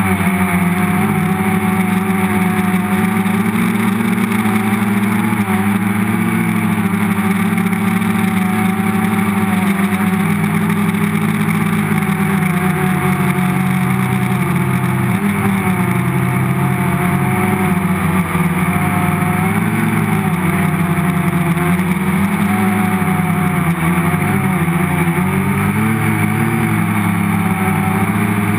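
Electric motors and propellers of a Varioframe multicopter buzzing steadily in flight, heard up close from a camera mounted on the frame, their pitch wavering slightly as the KK flight controller trims motor speeds.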